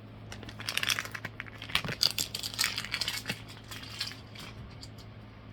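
Quick clicking and crinkling of card stock and packaging being handled, a dense run of small taps and rustles that dies away after about four and a half seconds.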